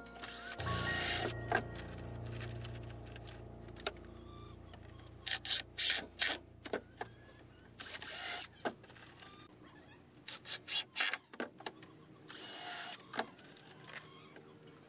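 Cordless drill running into a wooden bench board in three short bursts, with sharp clicks and knocks between them.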